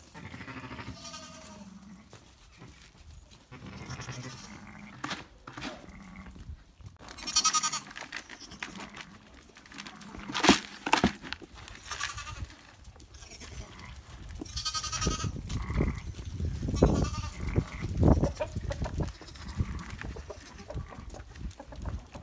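Zwartbles sheep and lambs bleating: several separate quavering calls, the loudest about halfway through. Low thuds and a rumble are heard in the later part.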